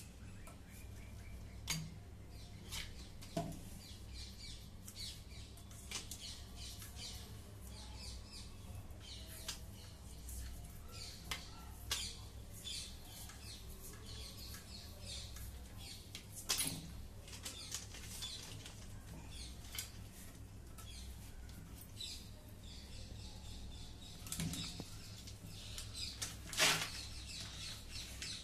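Irregular small clicks and rustles of electrical wire being handled and worked with pliers, a few sharper snaps among them.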